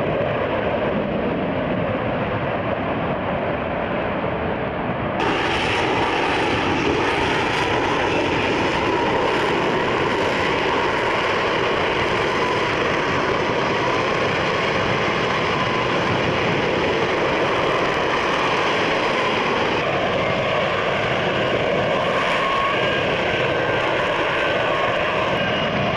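Steady, loud jet noise from a low-flying F-35B and its F135 engine as it slows toward a hover. The sound turns abruptly brighter and hissier about five seconds in.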